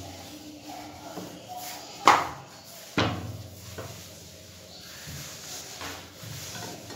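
Wooden rolling pin rolling out naan dough on a wooden board, a low rumbling under two sharp knocks about a second apart near the middle.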